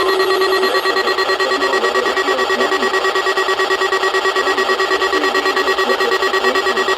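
NOAA Weather Radio warning alarm sounding for the weekly test: a loud electronic alert pulsing evenly, about four to five pulses a second, after a steady tone in the first second.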